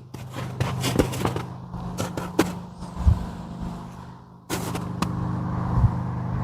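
Kubota D902 three-cylinder diesel engine of a mini excavator running steadily, with a series of sharp clicks and knocks in the first couple of seconds. About four and a half seconds in, the engine sound suddenly gets louder.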